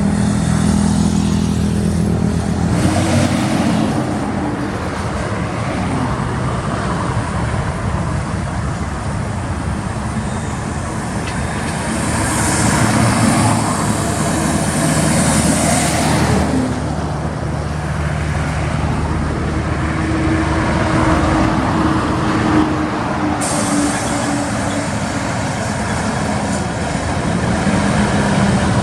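Heavy truck engines running in road traffic, the engine note shifting as trucks move, with a loud hissing rush about halfway through.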